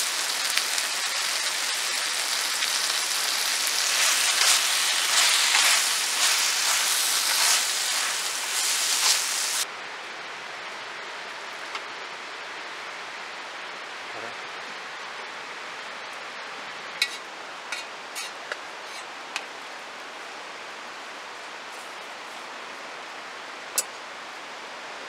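Stir-fried pork and kimchi sizzling in a wok on a camp stove: a loud, crackling hiss that cuts off abruptly about ten seconds in. After that, a quieter steady hiss with a few sharp clicks.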